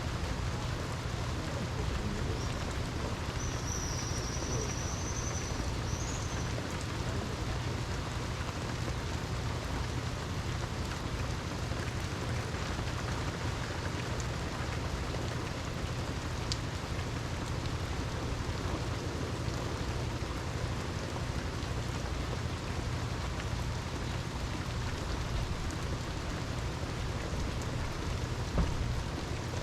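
Steady rain falling in an even hiss, with one sharper drip or tap near the end.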